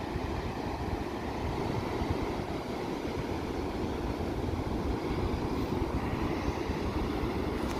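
Heavy ocean surf breaking on a sandy beach, a steady roar, with wind rumbling on the microphone.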